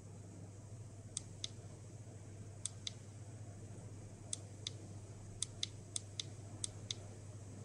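About ten short, sharp clicks, mostly in pairs about a quarter second apart, over a faint steady low hum.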